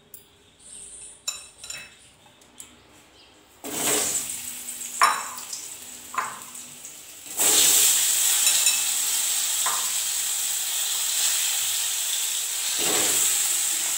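Potato wedges frying in hot oil in an aluminium kadai. The sizzle starts suddenly about four seconds in as they go into the oil, then jumps louder and holds steady from about halfway. A few sharp metal clinks sound against the pan, and there are light clicks of dishes being handled before the frying starts.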